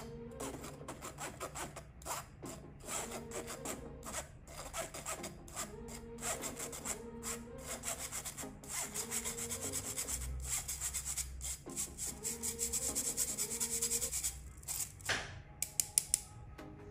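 Metal spoon scraping and pressing whole wheat flour through a fine-mesh stainless steel sieve: a fast run of rasping strokes. A few sharp clicks near the end.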